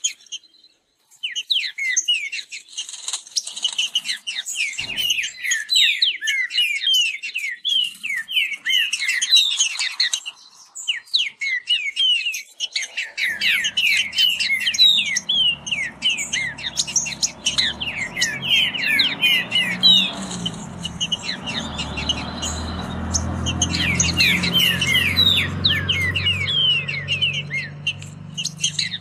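Caged green-winged saltators (trinca-ferro) singing fast against each other, long runs of quick, short descending notes with hardly a break. About halfway in, a low steady rumble of unknown source rises underneath the song.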